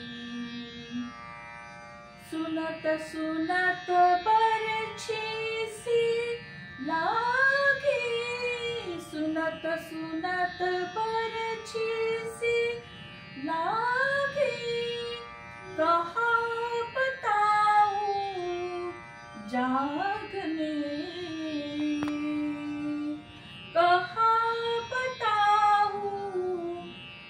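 A woman singing a Marathi natyageet (semi-classical stage song) in long phrases with sliding, swooping ornaments, over a steady drone accompaniment.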